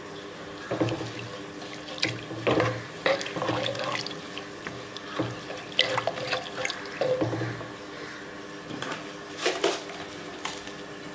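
Wooden spoon stirring thin coconut milk in a clay pot: the liquid sloshes and splashes, with irregular knocks of the spoon against the pot.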